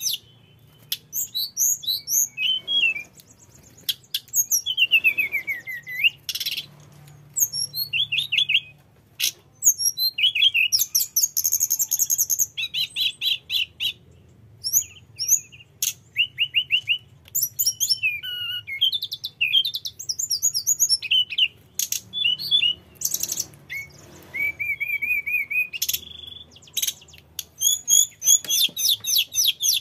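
Caged tledekan gunung, a blue-and-orange blue flycatcher, singing continuously: a long, varied run of high whistled phrases, fast trills and gliding notes with short pauses between, full of borrowed song phrases.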